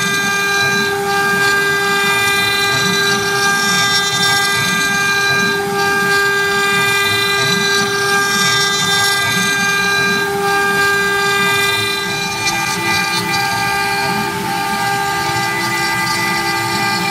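Wood CNC router spindle whining steadily at high speed as its bit cuts into a wooden dowel turning on the 4th-axis rotary, with rough cutting and machine noise underneath. About three quarters of the way in, a second slightly higher tone joins the whine.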